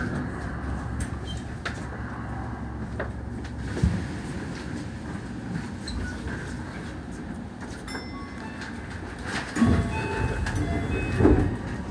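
Keio 8000-series electric train running, heard from inside at the front: a steady rumble of wheels on rail with a few sharp rail-joint clicks. Near the end come short high tones and a couple of louder thumps.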